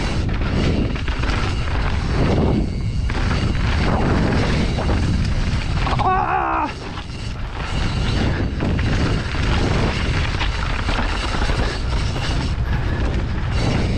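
Mountain bike descending a dirt trail at speed: steady wind buffeting on the action camera's microphone, with tyre and frame rattle over rough ground. A brief wavering squeal comes about six seconds in.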